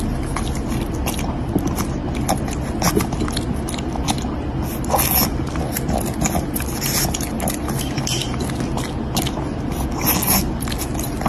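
Small dog chewing and crunching small pieces of food: irregular crisp bites and clicks over a steady low hum.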